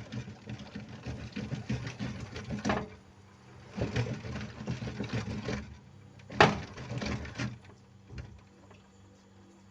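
Irregular rapid clattering and tapping of tools and parts being handled during refrigerator repair work, in two spells, with one sharp knock about two-thirds of the way through, over a steady low hum.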